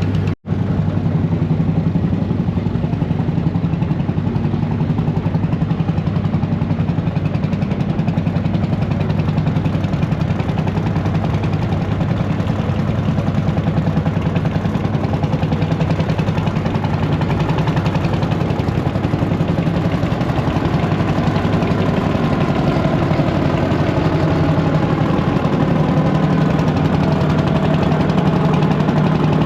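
An engine running steadily at idle with a fast, even pulsing beat. The sound drops out for an instant just after the start.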